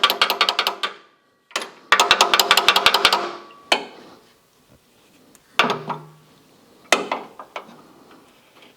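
Rapid hammer blows on a steel pin, driving it out of the drive shaft, each blow ringing. They come in two quick runs, one in the first second and one from about two to three seconds in, followed by a few single knocks.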